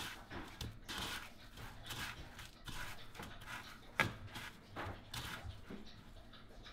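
Hand pressing and turning a frog leg in a plastic bowl of panko breadcrumbs: irregular soft rustling and scraping of the crumbs against the bowl, with one sharp tap about four seconds in.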